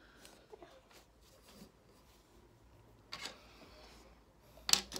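Small plastic Playmobil pieces clicking and tapping against the tabletop as they are picked up and set down: a few scattered clicks, the sharpest near the end.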